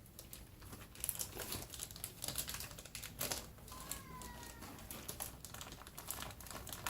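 Packaging and crate items being handled: a run of small clicks, taps and rustles. About four seconds in comes a short pitched sound lasting about half a second.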